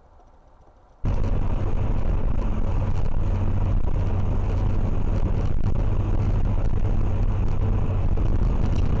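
Loud, steady rumble of a car driving on a highway, engine and road noise picked up by a dashcam inside the cabin. It cuts in abruptly about a second in.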